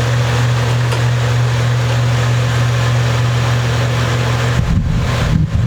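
A steady mechanical hum: a constant low drone with an even hiss over it. From about four and a half seconds in, an irregular low rumbling comes in on top.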